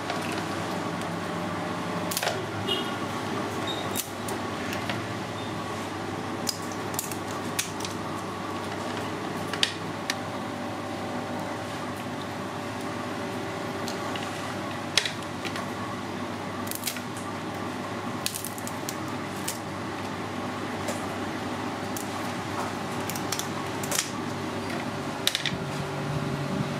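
Scattered sharp clicks and cracks of cooked crab shell being picked apart by hand and with scissors, over a steady background hum.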